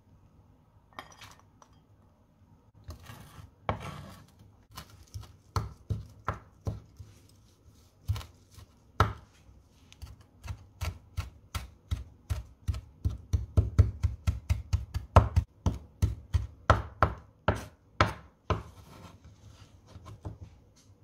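Kitchen knife chopping fresh parsley and chives on a wooden cutting board: a long run of sharp knocks of the blade on the wood, quickening to a fast rhythm of several strokes a second in the middle. There are softer scrapes near the start and near the end as the food is pushed and gathered on the board.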